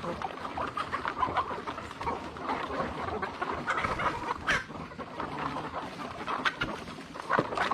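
Chickens clucking: many short calls overlapping, with scattered clicks.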